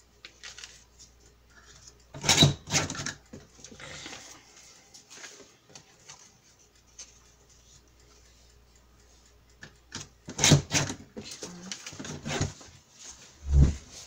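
Sheets of craft paper rustling and being shuffled by hand, in a short burst about two seconds in and again in a longer stretch from about ten seconds. A dull thump comes near the end.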